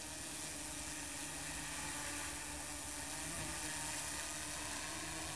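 Steady hiss of outdoor background noise with a faint, even low hum under it.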